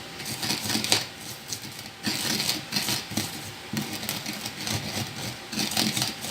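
Pestle pounding and grinding shallots, garlic, coriander and chilli into a spice paste in a small mortar: a run of quick, uneven knocks and clicks.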